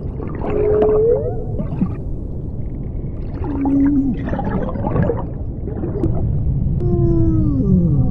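Ambient soundscape of slow, whale-like gliding tones over a continuous low rumble: one tone rises about half a second in, a short steady one sounds near the middle, and a long falling glide comes near the end.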